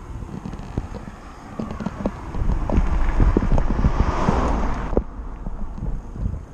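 Wind buffeting the microphone, with a louder rushing gust from about two and a half to five seconds in, and scattered light knocks.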